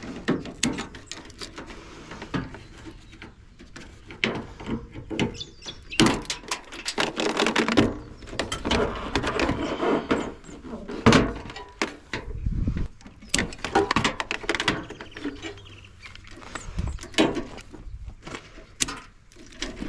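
Washing-machine plastic control panel and its circuit boards being handled and pulled apart: irregular knocks, clicks and scraping clatter, with busier stretches of rattling.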